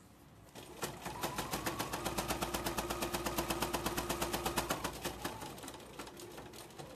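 Electric sewing machine stitching through a thick seam of many folded fabric layers: a fast, even run of needle strokes, about nine a second, over a steady motor hum. It starts about a second in and winds down after about five seconds. The machine makes a big, strained noise on this thickness, which is normal and not a fault.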